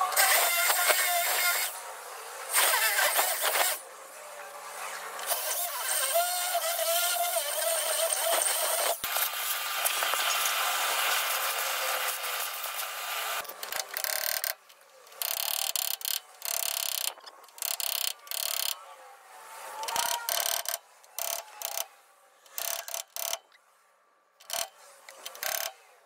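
Corded hammer drill boring out a steel ball-joint rivet, the sound sped up: a continuous high whirr for roughly the first half, then a rapid string of short on-off bursts as the drill keeps starting and stopping.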